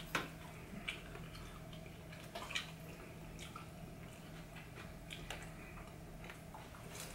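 Eating sounds: soft, scattered wet clicks and smacks of chewing and lips, over a faint steady low hum.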